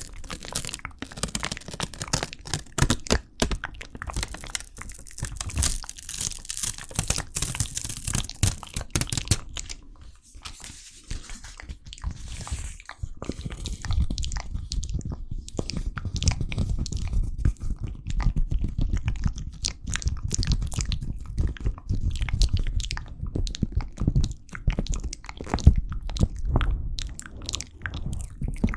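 Close-miked ASMR crunching and crackling. Dense crisp crackles for the first ten seconds, a softer stretch, then lower, heavier crunching from about fourteen seconds in.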